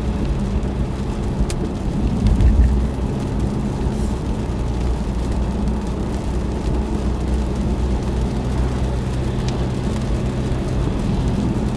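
Car driving steadily, heard from inside the cabin: a low engine and road hum with tyre noise, swelling briefly louder about two and a half seconds in.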